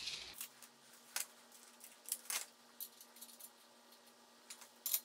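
Small metal hardware clinking and clicking as bolts and nuts are handled over a steel mobile-base frame: a handful of sharp, light clicks spread through the quiet.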